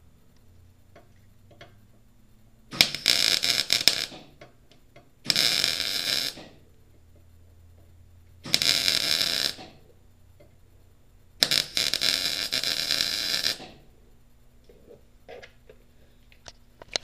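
Miller MIG welder arc crackling in four separate bursts of about one to two seconds each, with short pauses between, as welds are laid on the trike frame.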